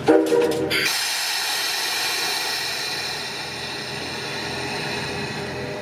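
D51 steam locomotive venting: a brief, loud pitched blast at the start gives way to a loud, steady hiss. It comes just as the locomotive readies to move off.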